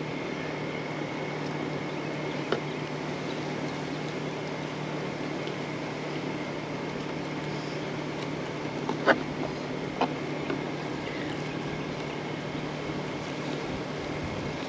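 Steady mechanical hum, with three short knocks: once about two seconds in and twice near the middle.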